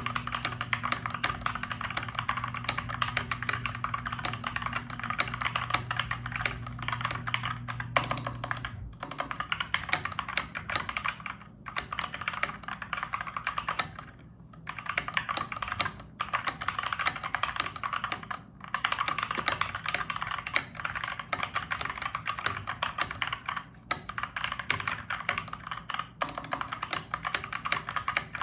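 Fast, continuous typing on a Dierya DK61E mechanical keyboard with tactile Gateron brown switches: a dense run of key clacks, broken by short pauses every few seconds.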